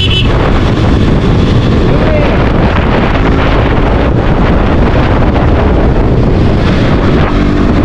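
Loud, steady wind rush buffeting the microphone of a camera on a moving motorcycle, with the KTM RC125's small single-cylinder engine running underneath at road speed.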